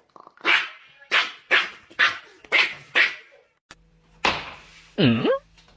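Dog barking in a quick regular series, about six barks half a second apart. Near the end a different short noise follows, then a call that swoops down and back up in pitch.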